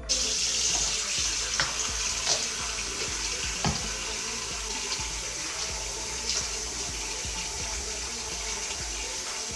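Water running steadily from a tap, with a few faint splashes in the first few seconds.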